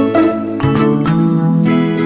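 Background music: a light instrumental tune with notes changing about every half second over a low bass line.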